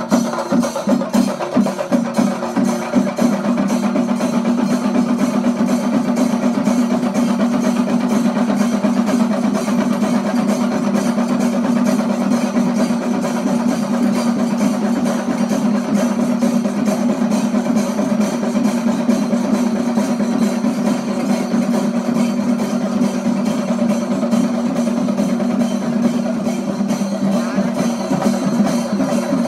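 Chendamelam, an ensemble of Kerala chenda drums, played fast. Separate strokes for the first few seconds close into a rapid continuous roll, which opens out into separate strokes again near the end.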